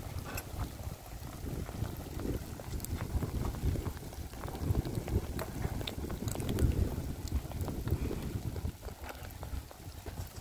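Wind buffeting the microphone: an uneven low rumble that swells and eases in gusts, with scattered light ticks over it.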